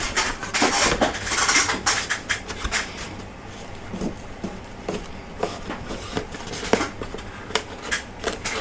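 Irregular light taps, clicks and rustles of a thin wooden wing skin sheet being set down on a model aircraft wing and pressed and shifted into place by hand. There are fewer of them in the middle.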